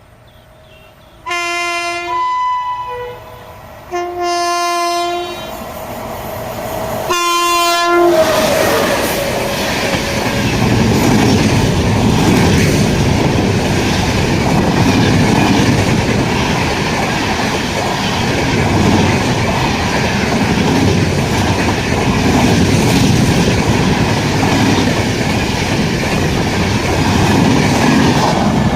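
Indian Railways express locomotive horn sounding three blasts, the third the shortest. Then the train passes at speed, its coaches making a steady, loud rush and clatter on the rails.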